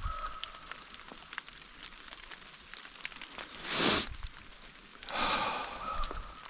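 Rain dripping on forest leaves in scattered light ticks over a soft hiss, with two brief rustles in the middle about a second and a half apart.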